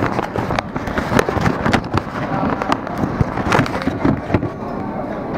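Handling noise on a hand-held camera: fingers gripping and rubbing over the body and microphone, giving irregular clicks, knocks and scrapes, with background voices underneath.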